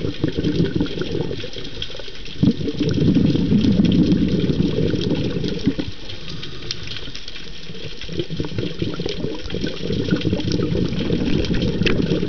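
Underwater sound through a camera housing: a scuba diver's exhaled bubbles gurgling and rushing, with a stronger surge of bubbles a couple of seconds in lasting about three seconds, and scattered faint clicks throughout.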